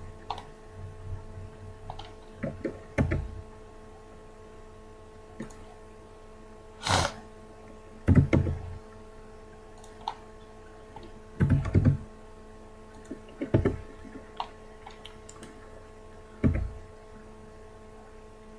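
Computer keyboard keys struck in scattered groups, some landing as dull thunks, over a steady electrical hum.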